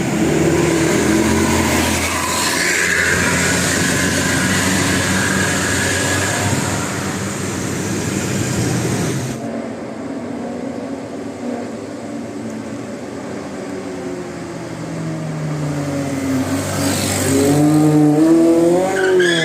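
Large tour buses passing on a road: engine and tyre noise. About nine seconds in, the sound changes suddenly to a steadier engine hum, which rises in pitch near the end.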